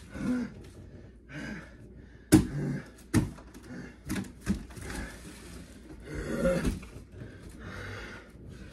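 Cardboard boxes being shoved and lifted: handling noise with a sharp knock about two seconds in and a few lighter knocks over the next two seconds.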